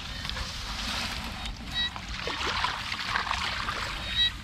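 Hands working in wet paddy mud: steady squelching and sloshing, with rice stalks brushing against each other.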